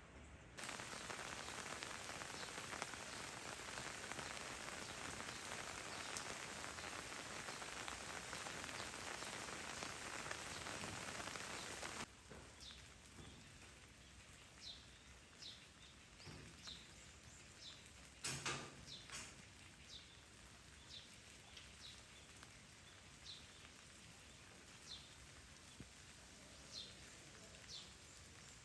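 Heavy rain falling as a steady hiss, which cuts off abruptly about twelve seconds in. A quieter background follows, with short high chirps every second or two and a single knock partway through.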